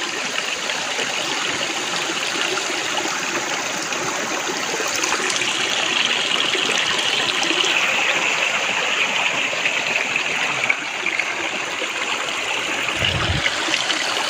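A shallow stream running over rocks: a steady, even rush of flowing water.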